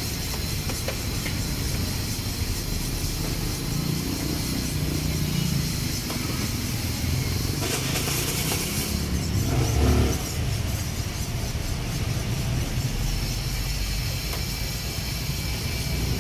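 Busy street ambience: steady traffic noise from passing vehicles, swelling louder for a couple of seconds near the middle.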